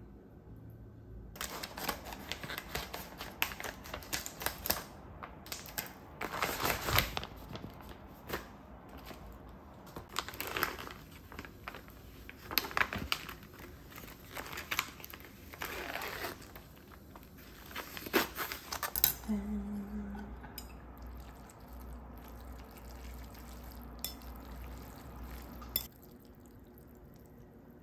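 Plastic meal-kit pouches and wrapping crinkling and rustling in repeated bursts as they are handled and unpacked. After about two-thirds of the way in this gives way to a quieter low hum with a few light clicks.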